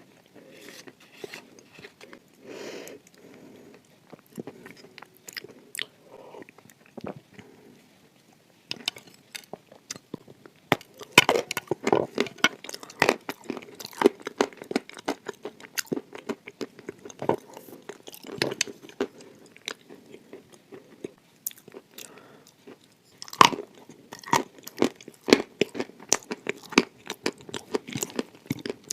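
A person biting and chewing dry chalk coated with clay paste, close to the microphone: crisp crunches, sparse and quieter for the first several seconds, then rapid and loud from about ten seconds in.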